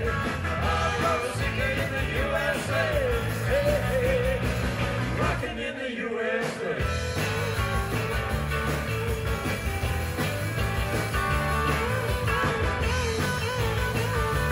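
Live rock band playing electric guitars, bass guitar and drums, with a lead line bending up and down in pitch over the rhythm. The bass and drums drop out briefly about six seconds in, then come back.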